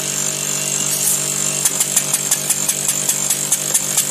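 Small single-cylinder pneumatic engine made from a refrigerator compressor, running on compressed air over a steady hum and hiss. About one and a half seconds in, its exhaust beats turn into a sharp, regular clicking at about six a second.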